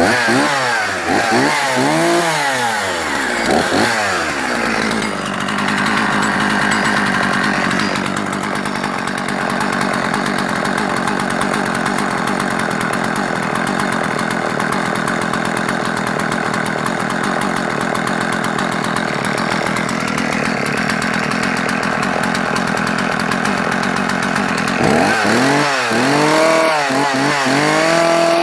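Husqvarna 50 chainsaw's two-stroke engine, freshly started, revved in several quick blips, then idling steadily. Near the end it is blipped through several quick revs again.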